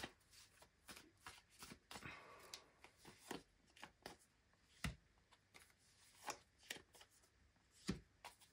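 Tarot deck being shuffled by hand with cards drawn from it: faint, irregular snaps and flicks of card against card.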